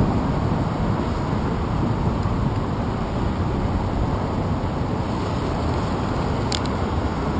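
Steady low rumble of road traffic and wind on the microphone of a handlebar-mounted action camera. There is a short sharp click about six and a half seconds in as a finger touches the camera.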